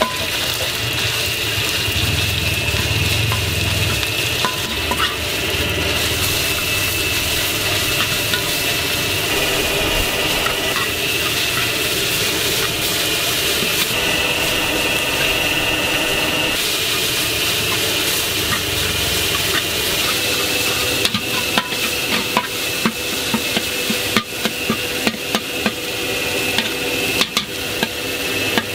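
Minced meat sizzling in oil in a wok while a metal spatula breaks it up and stirs it. Sharp scrapes and taps of the spatula against the wok come thick and fast in the last several seconds.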